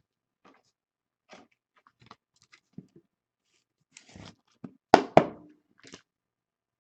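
Trading cards and their wrappers being handled: scattered light rustling and ticking, then two sharp clicks close together about five seconds in.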